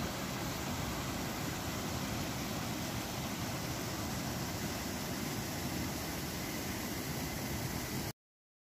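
Water rushing steadily over a low concrete weir and churning into foam below it, an even, unbroken roar that cuts off suddenly near the end.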